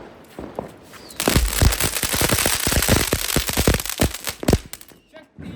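Firework going off: a few small pops, then about a second in a dense, rapid run of sharp cracks over a hissing spray that lasts about three seconds and stops suddenly.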